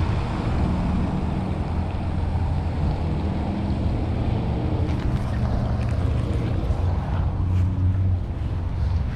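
Wind buffeting the microphone: a steady rushing noise with a low, even hum beneath it. A few faint clicks come in the second half.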